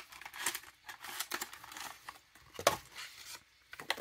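A small cardboard cosmetics box and its clear plastic case being opened and handled: scattered rustling and crinkling of packaging, with one sharp click about two and a half seconds in.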